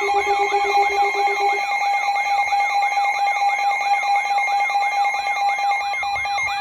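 Several emergency alert tones sounding over one another: steady high beeping tones, a siren-like tone sweeping up and down nearly four times a second, and a pulsed lower beep that stops about a second and a half in. These are the alert signals that come before a tornado warning is read out.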